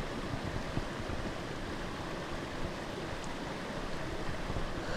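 Mountain stream water running steadily, a constant rushing noise.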